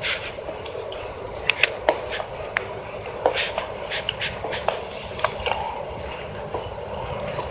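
Coffee-shop background noise: a steady murmur with scattered sharp clicks and clatters of cups and dishes, several a second at times.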